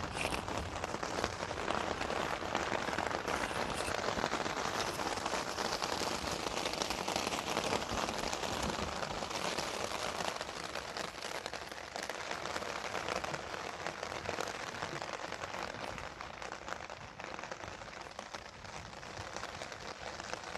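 Rain falling steadily onto a wet street and yard: a dense, even hiss of drops that eases a little in the second half.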